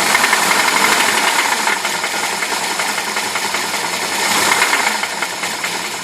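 UZAM-412 four-cylinder engine running with a rapid, steady metallic knock, a fault knock in the engine.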